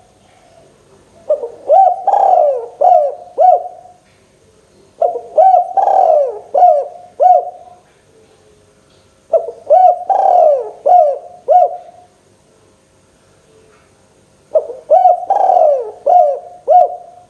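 Spotted dove (tekukur) cooing: four repeated phrases of about five notes each, one every four to five seconds, with short pauses between.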